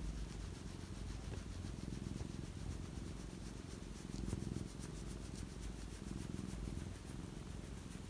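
Domestic cat purring steadily, a low rumble, as its chin is rubbed.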